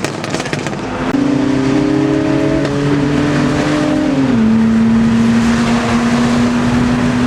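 Car engine running with a steady pitched drone that rises in level about a second in and drops slightly in pitch about four seconds in.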